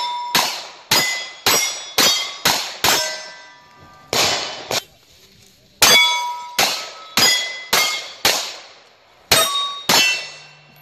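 Pistol-caliber carbine fired in quick runs at steel targets, about two shots a second with short pauses between runs. Each shot is followed by the clang and ring of a struck steel plate.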